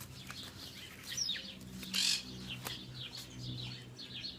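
Bird chirping: a few short, high, downward-sliding peeps, with a brief rustling burst about two seconds in.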